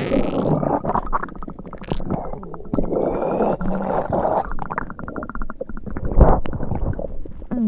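Upset-stomach growling and gurgling: irregular low rumbles and short pitched growls mixed with runs of quick bubbling clicks, with the strongest rumble about six seconds in.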